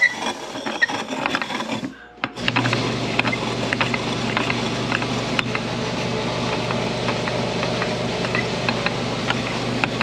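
Knocks and clicks as a piston ring is set into an electric piston ring grinder; about two and a half seconds in, its motor starts and runs steadily with a hum and scattered small ticks while the ring's end gap is ground.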